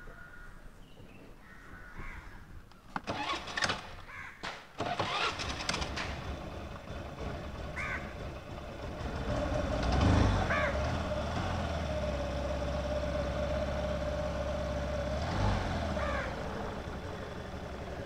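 A Honda scooter's small single-cylinder engine is started with its electric starter after a few clicks and knocks. It catches about ten seconds in and settles into a steady idle, with a short rev about fifteen seconds in.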